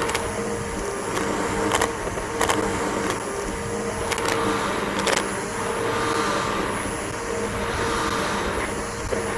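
Bissell BigGreen PowerForce vacuum cleaner running steadily on grass, its motor giving a high whine. Several sharp clicks come through as bits of lawn debris are picked up.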